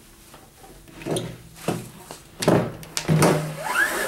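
Treadmill head roller being pulled out of the frame by hand: a series of knocks and scrapes as the metal roller and its shaft bump against the frame, with a short rising squeak near the end.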